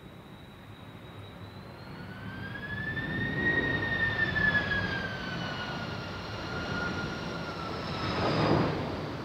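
Qantas Airbus A330-202 jet airliner on final approach to land, its engines at approach power: a jet whine and rumble that swell from about two seconds in, with a whistling tone that rises and then slowly sinks in pitch as it passes. A burst of rushing noise comes near the end.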